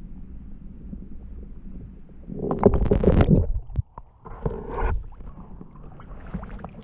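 Muffled low rumble of creek water heard through an underwater GoPro. About two and a half seconds in there is loud sloshing and splashing, and a second, shorter splash a little later, as the camera is lifted through the water's surface.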